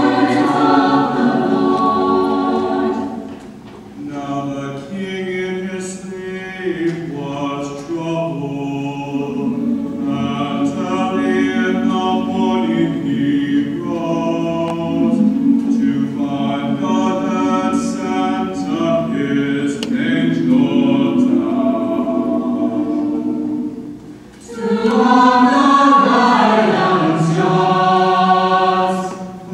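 Mixed-voice high school choir singing sustained chords in parts. The singing drops softer a few seconds in, breaks off briefly about 24 seconds in, and comes back louder near the end.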